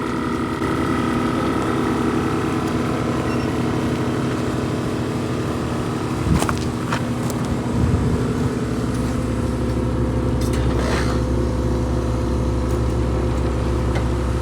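A motor running steadily with an even hum. There is a sharp knock about six seconds in, and a deeper hum builds up about eight seconds in.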